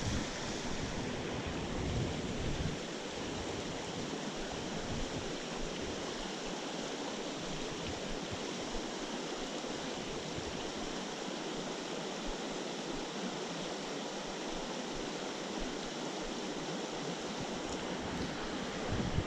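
Steady rushing hiss of a flowing spring creek, with a low rumble of wind on the microphone in the first few seconds.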